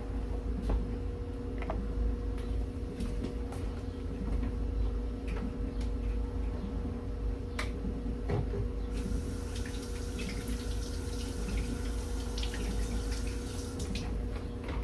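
Kitchen clean-up: scattered clinks and knocks of dishes, and from about halfway through, a tap running water into a sink, over a steady hum.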